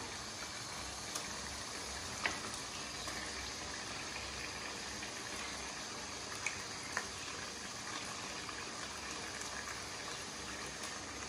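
Browned masala sizzling and bubbling steadily in a pan over a gas burner while raw chicken pieces are dropped in, with a few faint clicks.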